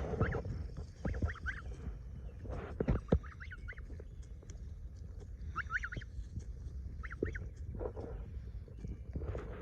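Young geese, 43 days old, giving short, high peeping calls that rise and fall, in quick runs of two to four, several times over. Their voices are only just starting to turn into a honk. A few sharp knocks come in the first three seconds.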